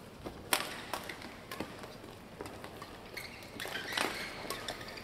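Sports-hall ambience between badminton rallies: a low background with scattered sharp taps and clicks, the loudest about half a second in. A murmur of crowd voices rises near the end.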